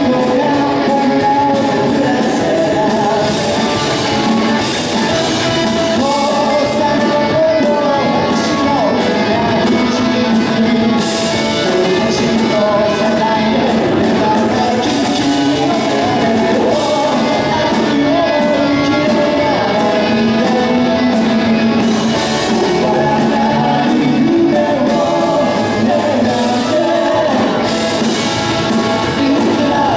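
Live rock band performing a song: a male singer over electric guitars, bass and drums, amplified through PA speakers, loud and continuous.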